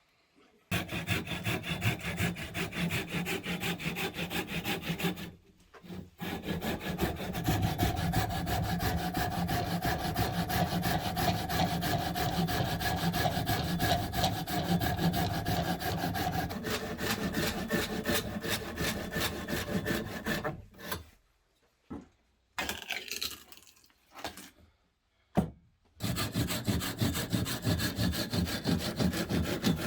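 Saw cutting through wood with quick, even strokes, in three spells with short pauses between them. A steady ringing tone runs through part of the long middle spell.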